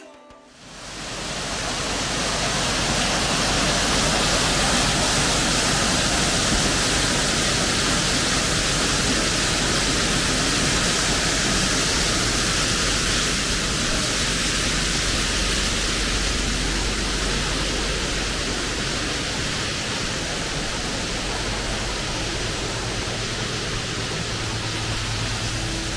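Steady rush of Lumsdale Falls, a waterfall on Bentley Brook: loud, even, churning water noise that swells up over the first second or two and holds without a break.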